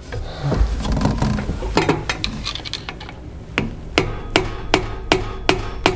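Metal-on-metal taps of a hammer on a small screwdriver, driving a new rear driveshaft support bearing down onto the BMW X3/X4 driveshaft without a press. Handling noise as the shaft is turned comes first; about halfway through, steady sharp taps start, roughly three a second.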